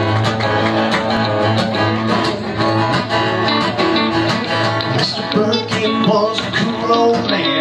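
Live country song played by a small band, led by an acoustic guitar strumming to a steady beat.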